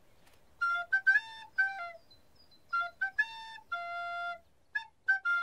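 Recorder playing a simple tune in short, separate notes, with a pause of about a second near the middle. It is a beginner practising, now sounding better.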